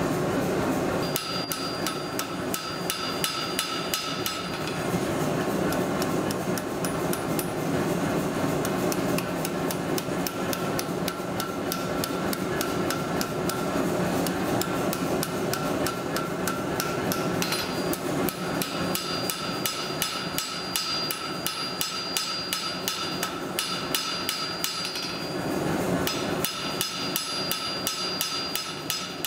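Hand hammer striking hot steel bar stock on an anvil in rapid, steady blows, the anvil ringing with the strikes, forging a spatula. A steady rush from the gas forge's burner runs underneath.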